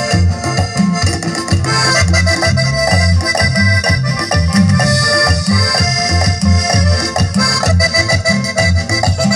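Live band playing Latin dance music, with accordion carrying the melody over a drum kit and a pulsing bass line.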